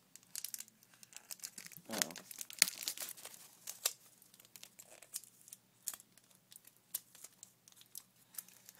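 Paper packaging crinkling and tearing as hands work a coin out of its wrapping, with scattered sharp clicks and taps.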